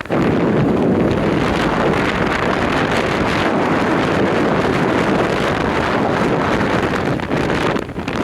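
Wind buffeting the microphone of a riding motorcyclist, a loud steady rush that dips briefly near the end.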